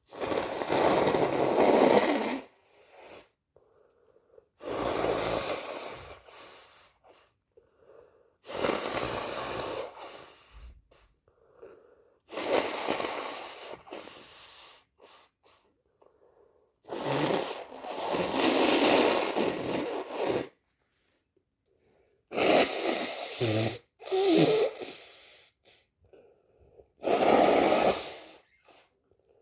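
A person with a cold blowing their nose hard, seven times, each blow lasting about two seconds and coming every few seconds, with quieter breaths between.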